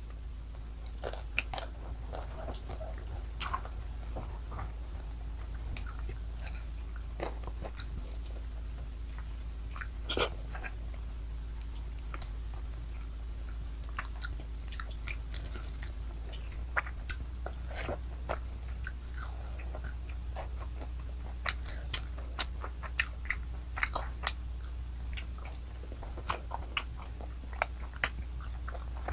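Close-miked eating: biting and chewing pork with wet mouth clicks and smacks, which come thicker in the last several seconds as meat is gnawed off a rib bone.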